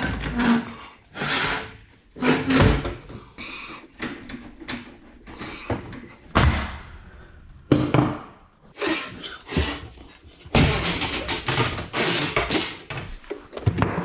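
Irregular metal knocks and clanks from a steel garage door torsion shaft and a new torsion spring being handled and fitted, with a longer stretch of rattling and scraping late on.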